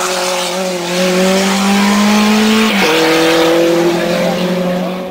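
Renault 5 Turbo rally car accelerating hard away through a bend, its engine note rising, then dropping with an upshift nearly three seconds in before fading as the car goes off up the road.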